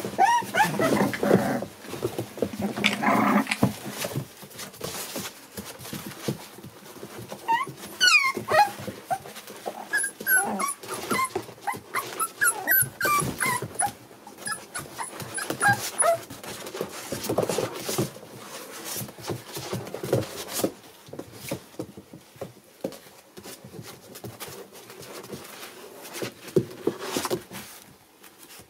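A litter of young American Bully puppies whimpering and squeaking, with a run of short, high squeaks in the middle, over the scratching and shuffling of paws as they crawl over one another.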